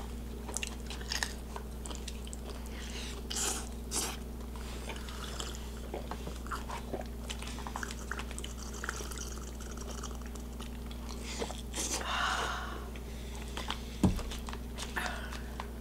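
Close-miked mukbang eating sounds: chewing and biting of chili cheese fries, with scattered small clicks of a plastic fork against the foil tray.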